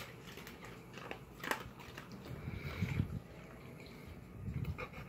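A dog crunching dry kibble from a metal dish, with quiet, irregular crunches of chewing.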